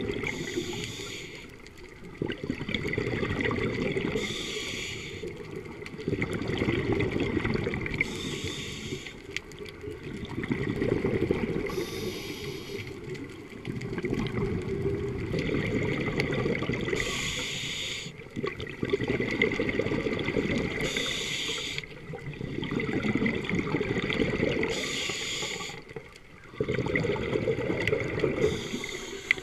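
Scuba diver breathing through a regulator underwater: regular breaths with bubbling about every four seconds, over a steady low churning of water.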